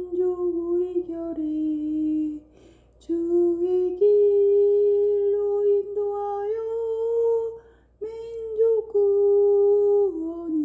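A woman singing a Korean hymn solo, in slow, long-held notes, stopping briefly twice for breath.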